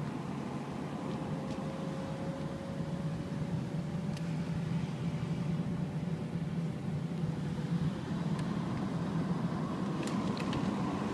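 Steady road and engine rumble heard from inside a moving car's cabin, with a faint whine that holds from about a second in until about eight seconds. A few light clicks come near the end.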